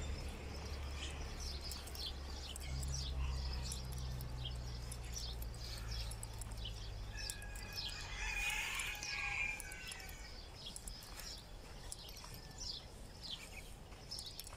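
A rooster crows once, about eight seconds in, amid short chirps of small birds. A low steady rumble underneath fades out about ten seconds in.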